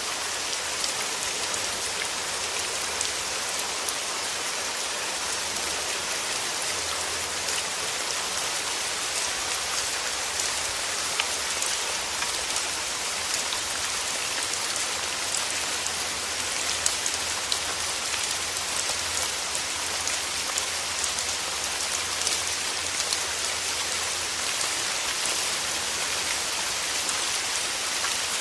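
Steady rain falling, a continuous hiss with many small drop ticks and an occasional louder drop striking a surface.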